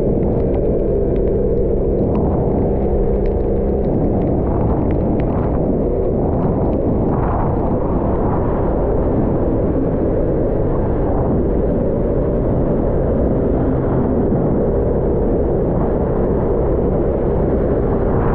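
Aprilia SXR 50 scooter running under way, with heavy wind rumble on the microphone. A steady engine hum is clearest in the first few seconds.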